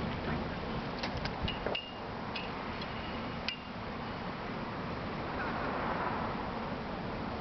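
Metal hardware of a side-roll tarp system, crank handle and roller, giving a few sharp clinks in the first half, some of them ringing briefly, over steady wind noise.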